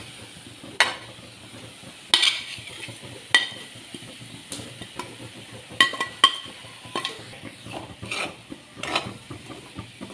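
Steel spoon scraping and clinking in a metal kadai as grated coconut and garlic are scraped in from a plate and stirred into cooked banana blossom. Sharp ringing clinks come about once a second, with scraping in between.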